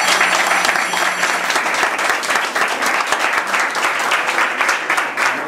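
Audience applauding: many hands clapping in a dense, steady patter that thins slightly toward the end.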